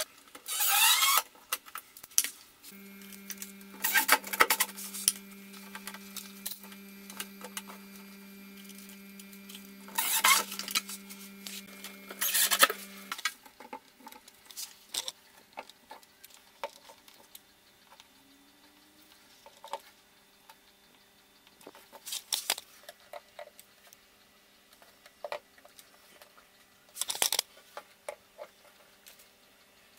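Intermittent clicks, taps and scrapes of a hot glue gun, plastic pipe clips and a plastic water pipe being handled against a skirting board, with a few louder scraping bursts spread through. A faint steady hum runs from about three seconds in to about thirteen seconds in.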